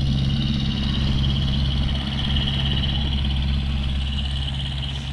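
Chairlift drive machinery running with a steady low hum and a thin, constant high whine.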